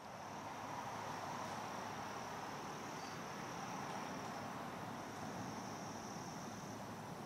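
Insects trilling steadily in one continuous high-pitched note, over a low, even hiss of woodland background.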